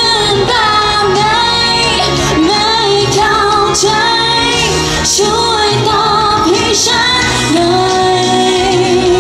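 A woman singing a pop song live over loud amplified backing music, her voice carrying a gliding, held melody.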